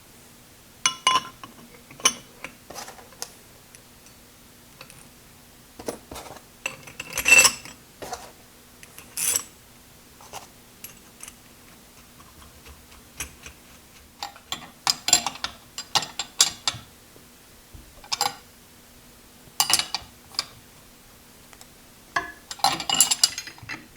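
Irregular metallic clinks and taps of steel lathe parts being worked by hand, some ringing briefly, as a tight pulley is worked along the spindle shaft of a Hardinge Cataract bench lathe.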